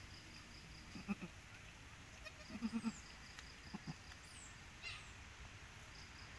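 Doe goat tending her newborn kid with short, low, soft bleats: one about a second in, a quick run of three at the middle, and another shortly after.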